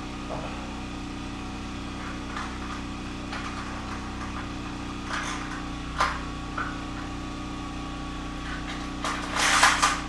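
Portable generator engine running steadily, with a sharp click about six seconds in and a short burst of hissing rattle near the end.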